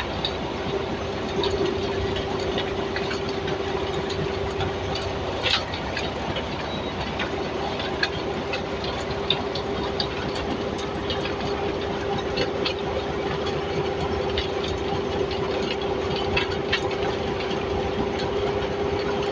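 A large machine running with a steady whine and scattered sharp metallic clanks.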